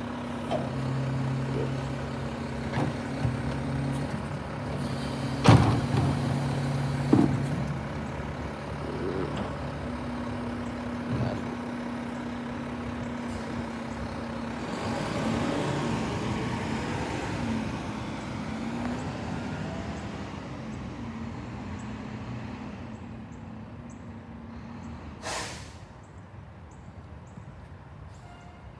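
Rear-loader garbage truck's engine running with a steady hum, with loud bangs about five and a half and seven seconds in as a cart is emptied into the hopper. The truck then pulls away and fades, with a short air-brake hiss near the end.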